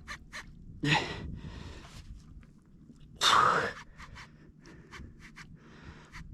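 A man panting hard, with two loud heavy breaths about a second in and just after three seconds in, as he fights a big fish on the line. Quick, sharp clicks come between and after the breaths.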